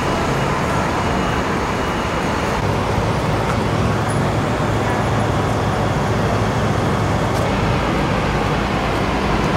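Steady city street traffic noise, with a low engine drone that grows louder about three seconds in.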